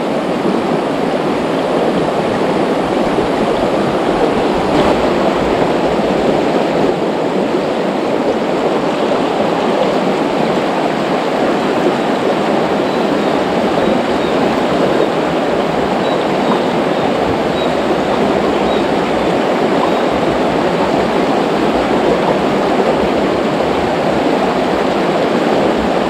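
Fast, shallow river running over rocks: a steady, even rush of water.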